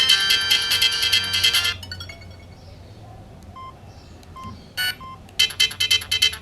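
Samsung SGH-T509 mobile phone playing an electronic ringtone through its small speaker; it stops suddenly about a quarter of the way in. A few short keypad beeps follow in the quieter gap, and another electronic ringtone starts near the end.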